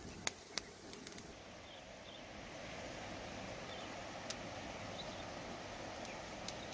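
Charcoal fire crackling under a pig's head roasting on a wire grill: a few sharp pops in the first second, then a steady rushing background with an occasional pop.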